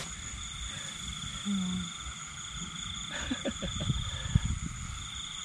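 Night insects, crickets, trilling steadily in high, even tones. In the second half, grass rustles and small knocks as hands work in the grass.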